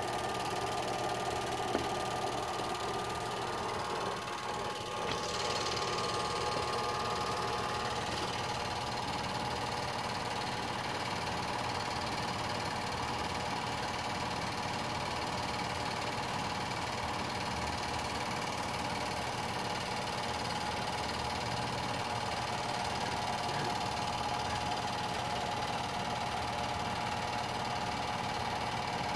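Film projector running, a steady mechanical whir with a constant hum in it.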